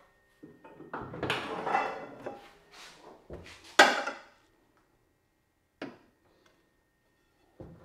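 Hard objects being handled and clattering for a few seconds, with one sharp knock about four seconds in, then two separate single clicks. A faint steady high whine runs underneath.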